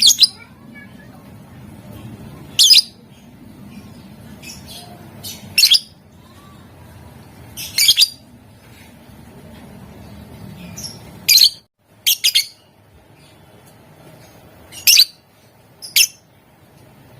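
Lovebird calling: short, shrill chirps about every one to three seconds, some in quick pairs, with softer chirps between them, over a low steady background hum.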